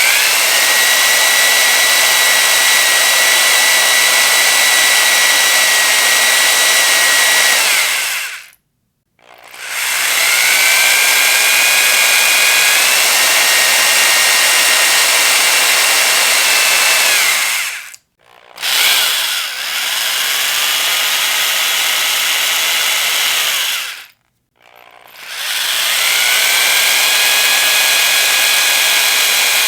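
Electric power drill run at full speed in four bursts of several seconds, each spinning up to a steady high-pitched whine and then stopping abruptly, with brief pauses between them. The pitch steps up slightly partway through the second run, and the third run is a little lower.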